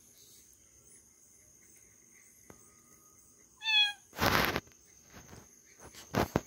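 A kitten meows once, a short high-pitched meow a little over halfway through. Right after it comes a loud rush of noise lasting about half a second, and near the end a second, shorter rush, over a steady high whine of crickets.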